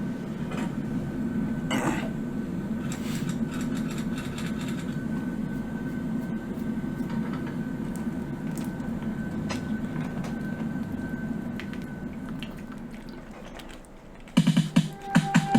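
Steady low rumble with faint scattered clicks and a thin high held tone, the ambient opening of a music track, fading out near the end. Music with plucked and keyboard notes then begins.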